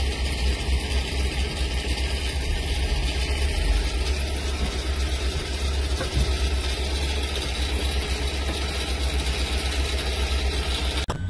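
Motor vehicle engines idling, a steady low rumble, heard from inside the cabin in slow-moving truck traffic. It cuts off abruptly just before the end.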